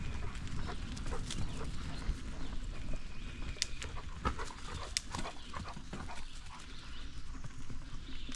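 Bicycle ride along a dirt farm trail with dogs running alongside: a steady low rumble with scattered sharp clicks and ticks.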